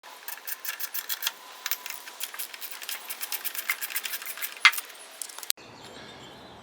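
Ratchet wrench clicking in quick runs as it loosens the two 5/16 bolts holding the ignition coil on a Lawn Boy mower engine, with one sharper click about four and a half seconds in; the clicking stops about five and a half seconds in.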